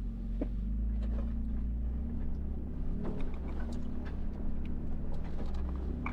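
Truck engine running steadily with a low rumble, with scattered small clicks and rattles over it.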